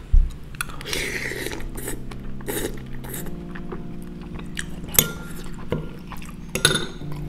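Metal spoon and chopsticks clinking and scraping against a ceramic bowl while the last of the noodles and broth are scooped up, with slurps of broth from the spoon. A few sharp clinks stand out, about a second in, about five seconds in and near the end.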